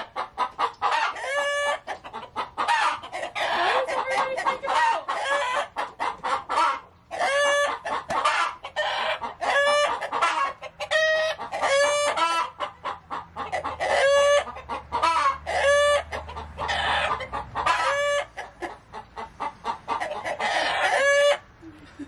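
Chickens calling loudly in a rapid string of short calls, several overlapping at once, with a brief lull about seven seconds in.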